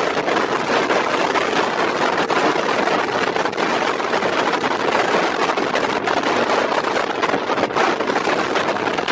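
A moving passenger train heard from on board, with a steady rush of wind buffeting the microphone over the running noise.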